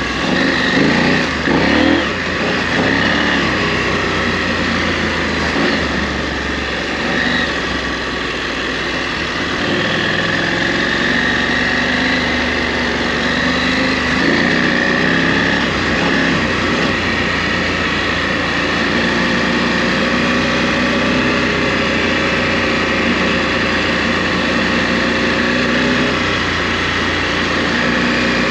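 KTM 890 Adventure R's parallel-twin engine running under changing throttle, its revs rising and falling in the first few seconds, then holding steadier.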